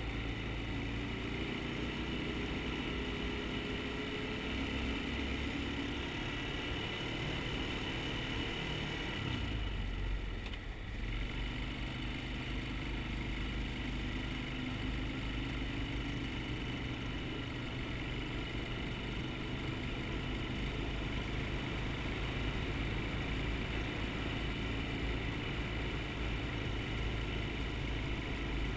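Quad (ATV) engine running steadily under way, with a short dip in engine sound about ten seconds in before it picks up again.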